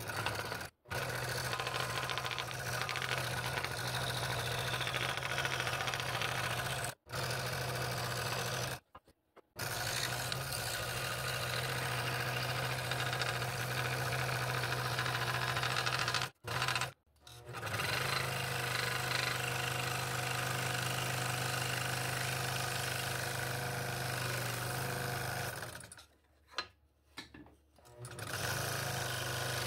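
Scroll saw running with a No. 5 blade, cutting a ring out of a wooden blank, a steady mechanical hum and rasp. The sound drops out suddenly several times for a moment or two before the saw is heard again.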